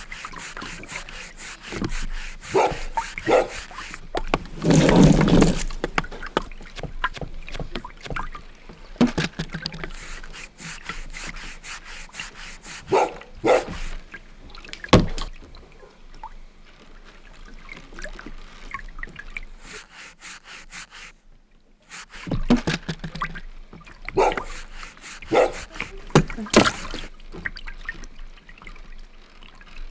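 Hand-made foley sound effects: water splashing and sloshing, knocks and rubbing, and short dog-like barks and animal calls. The loudest is a noisy splash-like burst about five seconds in.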